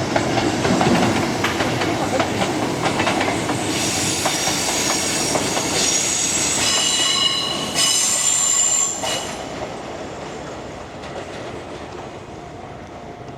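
Nankai Koya Line train running past over the level crossing, its wheels clattering over the rail joints. About four seconds in, a high-pitched wheel squeal sets in and lasts about five seconds, then the train's sound fades away.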